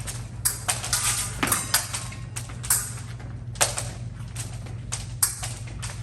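Épée fencing action: a string of sharp clacks and taps from blade contact and fencers' feet on the strip, a few louder strikes with a short metallic ring, over a steady low hum.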